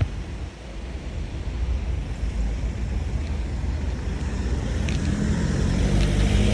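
Motor vehicle noise: a steady low rumble, with an engine hum that comes up and grows louder from about five seconds in.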